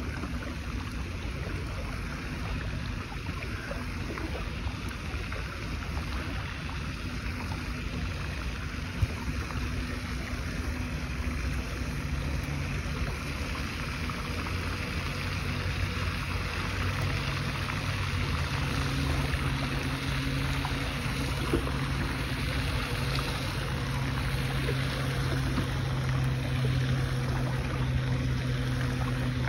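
Kayak moving on a lake: a steady wash of water and wind noise, with a low steady hum that grows louder about halfway through. Two short sharp knocks stand out, one about a third of the way in and one about two thirds in.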